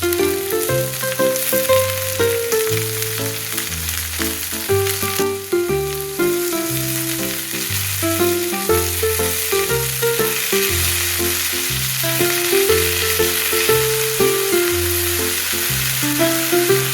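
Background music with a plucked melody and a walking bass line, over the steady sizzle of food frying in hot oil in a pan. The sizzle grows stronger about halfway through.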